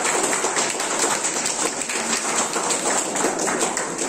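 Audience applauding, a steady round of hand claps.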